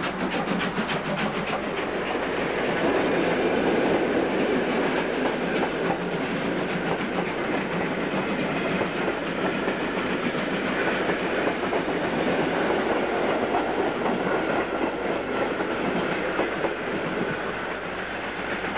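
Steam-hauled passenger train passing close by: quick beats from the locomotive, which is working hard, in the first couple of seconds, then the coaches rolling past with a steady rumble and clatter of wheels over the rail joints.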